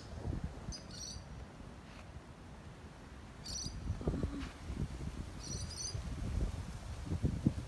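Short high-pitched chirps, each a quick cluster of pulses, repeating every two seconds or so from a small chirping animal. Under them, wind rumbles on the microphone, louder in the second half.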